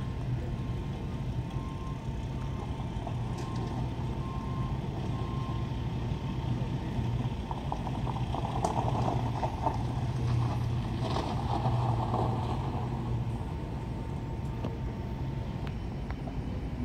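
Steady low engine rumble, with a faint broken beeping during the first few seconds and a louder crackling rattle about halfway through.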